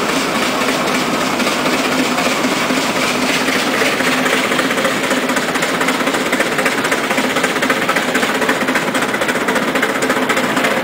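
Steam road locomotive running along a paved road, its engine and gearing making a steady, fast clatter.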